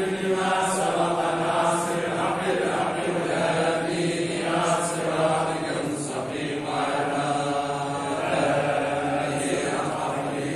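Men's voices chanting together in unison, a collective Sufi dhikr recitation whose long phrases rise and fall in pitch without a break.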